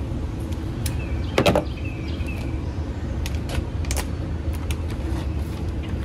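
Scattered clicks and light knocks of hand tools and small parts being picked up and set down on the car, over a steady low rumble.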